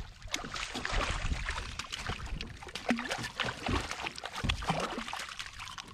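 A small bowfin splashing at the side of a kayak, water sloshing, with scattered clicks and knocks as it is handled.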